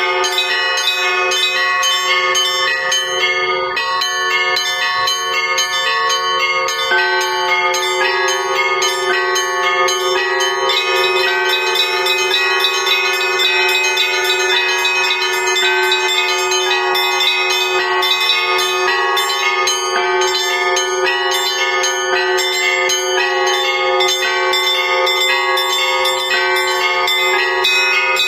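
Russian Orthodox church bells rung in a continuous festive peal, the ringing that greets a procession of the cross. Several bells of different pitches sound at once, with rapid repeated strikes of the smaller bells over the steady hum of a larger bell.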